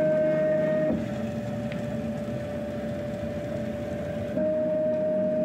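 CNC router's axis motors whining at one steady pitch as the machine moves a touch probe through an automatic probing cycle at maximum feed rate. The whine drops in level about a second in and comes back louder near the end.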